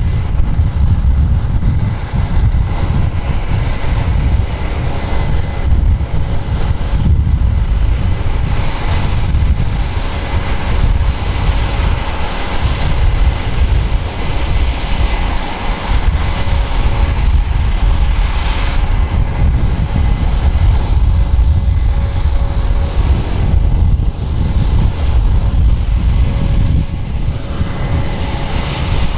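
Twin-engine F/A-18F Super Hornet jet idling: a steady high turbine whine over a constant low rumble.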